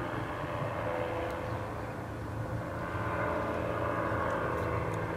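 Fresh Breeze paramotor's two-stroke engine and propeller droning steadily overhead in flight, easing off slightly about two seconds in before picking up again.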